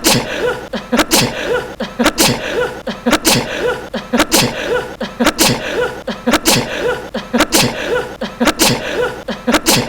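A man's short sneeze repeated over and over as an edited loop, a sharp burst about once a second.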